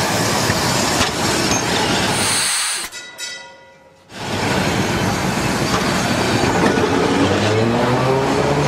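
Tram running on its rails, wheels rattling over the track with a rolling rumble and some squealing later on. The sound fades out for about a second around three seconds in, then the running noise comes back.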